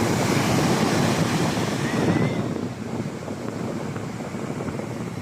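Sea waves washing in, loudest for the first two and a half seconds and then easing, with wind rumbling on the microphone.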